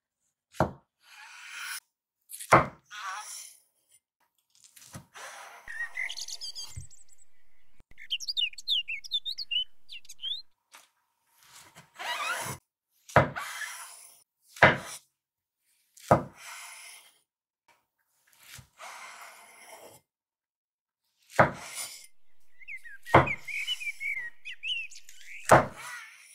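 Chef's knife slicing through white button mushrooms and knocking down onto a wooden cutting board, about a dozen separate chops at an uneven pace. Birds chirp in the background, around the middle and again near the end.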